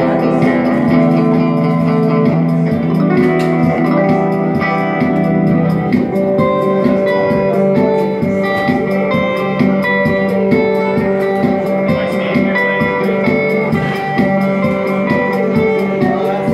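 Electric guitar played live through an amplifier: held low notes with a melody line moving above them.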